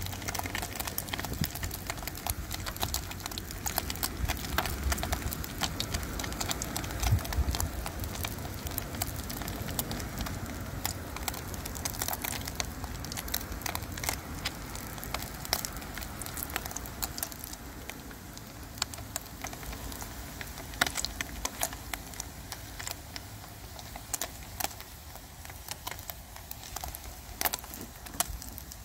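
Battered goby pieces deep-frying in hot oil in a small aluminium pot: a steady sizzle with many small crackles and pops, growing a little quieter as it goes. The pieces were patted dry first, so the oil spits little while they fry toward golden brown.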